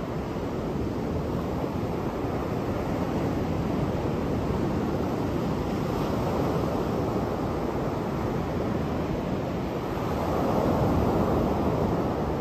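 Surf breaking and washing up a sandy beach: a steady rushing wash that swells and eases with the waves, loudest near the end.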